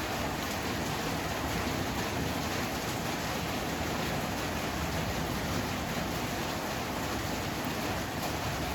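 Heavy rain falling steadily, an even, dense hiss with no thunder.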